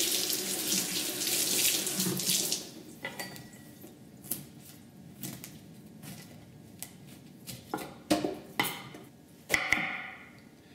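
Kitchen tap running into a sink as a Chinese eggplant is rinsed, stopping about three seconds in. Then a knife cuts the eggplant on a bamboo cutting board, with several sharp knocks of the blade on the board near the end.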